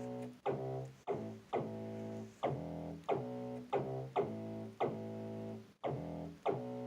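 Teenage Engineering PO-14 sub Pocket Operator playing a looping synth bass pattern: sharp-attacked notes at about two a second, each held briefly, shifting in pitch from note to note.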